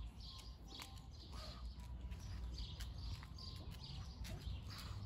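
Small birds chirping over and over, short high calls about two or three a second, over a steady low rumble.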